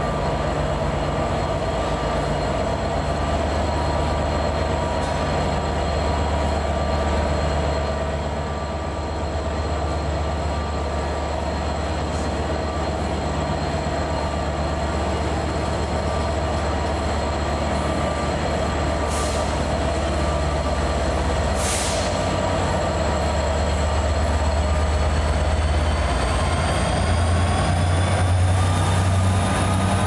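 Locomotive-hauled passenger train, a Transport for Wales set of coaches, rolling slowly through the platform with a steady low hum and the run of its wheels. There are two brief hisses past the middle. Near the end a whine rises in pitch and the sound grows a little louder as the locomotive at the rear comes by.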